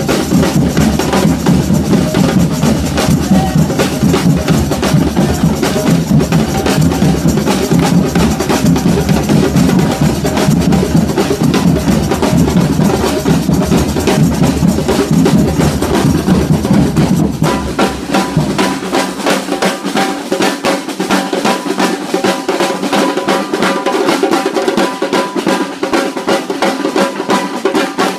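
Samba band drumming a fast, dense batucada rhythm with deep bass drums, snare-type drums and rolls. About two-thirds of the way through, the deep bass drums drop out and only the higher drums keep playing.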